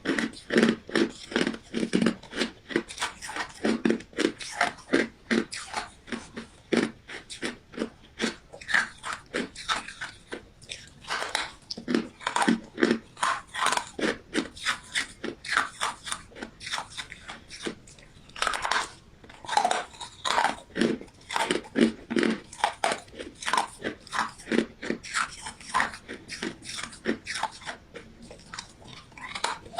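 Ice being bitten and chewed close to the microphone: a continuous run of sharp crunches, several a second.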